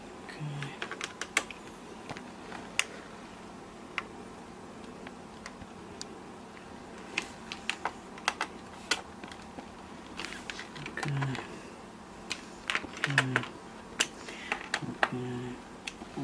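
Irregular light clicks and taps of a screwdriver working the screws of a plastic laptop case, checking and tightening them one by one. There are a few brief low hums in between.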